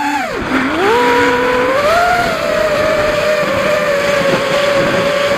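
Racing quadcopter's brushless motors and propellers whining, heard from the onboard camera. The pitch drops sharply just after the start, then climbs back and holds nearly steady through the rest, over a rushing noise.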